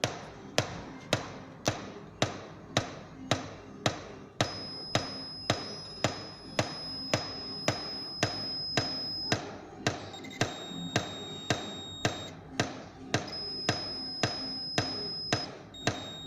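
Williams Police Force pinball machine's sound system giving out a steady 'toc toc toc' knock, nearly twice a second, in place of its music. Faint high tones come and go over the knocking. This is the sign of a sound-board fault.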